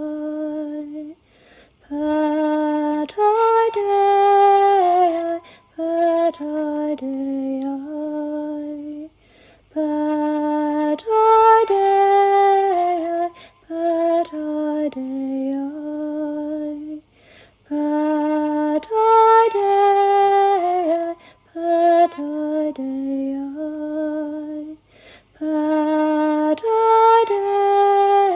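A woman singing alone, with no accompaniment, in slow held notes that step up and down. The same lullaby-like phrase repeats about every eight seconds, with brief pauses between notes.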